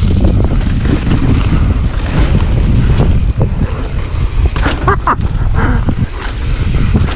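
Wind buffeting an action camera's microphone during a fast mountain bike descent, with a steady low rumble from the tyres and trail. A few brief sharper sounds come through about five seconds in.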